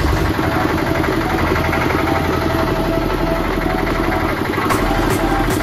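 Field Marshall diesel engine running steadily under load, driving the hoist of a concrete lift mixer while the clutch lever is worked to raise the water-filled hopper. The clutch has just been tightened to stop it slipping under load. A regular ticking, about two to three a second, joins in near the end.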